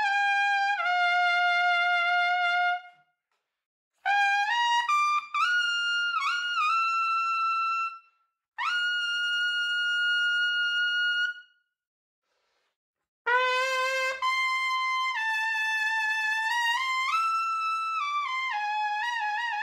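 Conn trumpet played solo in short phrases separated by pauses, with quick note runs and a long held note. After a pause a second, silver-plated Conn trumpet plays a longer phrase ending with vibrato.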